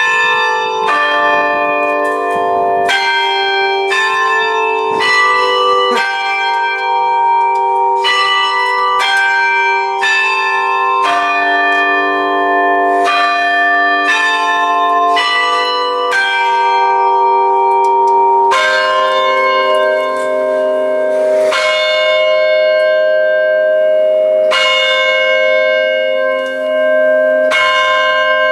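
Tower bells playing a slow melody, loud and close: one struck note about every second, each ringing on under the next. From about two-thirds of the way in, the notes come slower, about every three seconds.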